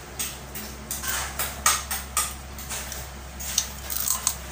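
Cooked crab shell being cracked apart by hand and teeth while eating: a run of sharp crackles and clicks, the loudest about a second and a half in.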